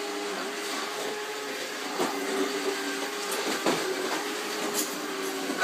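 Small vacuum cleaner running steadily, a motor hum under a wide whooshing hiss, with a few light knocks or clicks over it.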